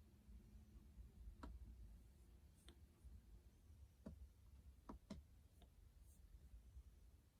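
Near silence with a low hum and about six faint, scattered computer mouse clicks, two of them close together about five seconds in.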